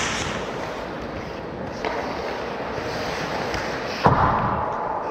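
Hockey play: a steady scraping hiss of skates, a sharp knock about two seconds in and a louder thud about four seconds in, from stick, puck or boards.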